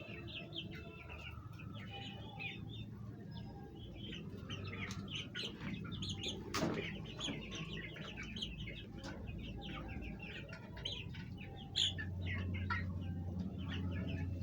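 Domestic hens clucking: many short, overlapping calls, with a sharp click about six and a half seconds in and a low hum underneath.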